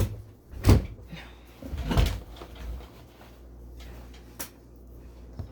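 Camera and its mount being handled and set in place: a few sharp knocks and clunks, the loudest right at the start and just under a second in, then a rustle and a smaller knock later, over a steady low hum.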